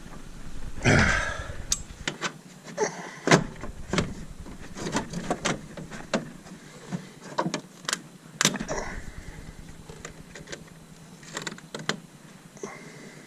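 Irregular metal clicks and knocks from hand tools working a puller to draw the pulley off a power steering pump; the loudest, longer scrape comes about a second in.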